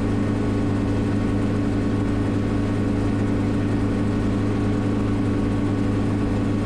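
Schweizer 300CB helicopter in cruise flight, heard from the cockpit: the steady drone of its four-cylinder Lycoming piston engine and rotors, a constant low hum with several steady tones above it.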